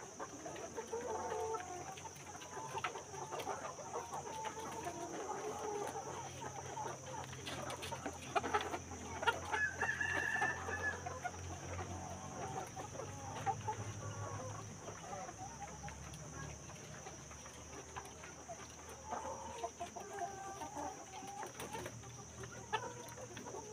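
A flock of chickens clucking, with many short, irregular calls overlapping.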